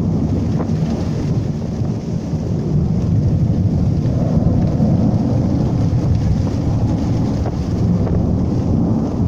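Thunderstorm: a continuous low rumble of thunder, mixed with wind buffeting the microphone.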